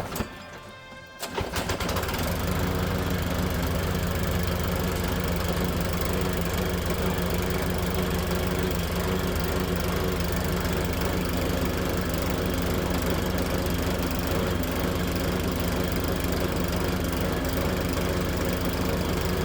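Power Smart walk-behind lawn mower's small single-cylinder engine starting about a second in and then running steadily, its carburetor freshly cleaned.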